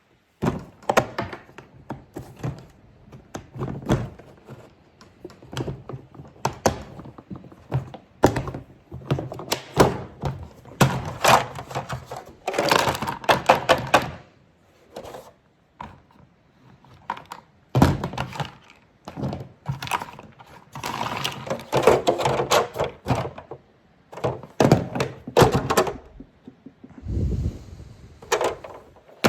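Hand tools and a hard plastic storage case being handled: irregular knocks, clacks and clattering as pieces are moved around and set in the case, with a heavier low thump near the end.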